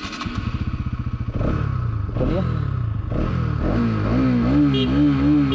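Bajaj Pulsar NS200's single-cylinder engine ticking over with a quick pulsing beat, then revved in a few short blips that rise and fall in pitch. From about four seconds in it is held at raised revs with a slightly wavering note.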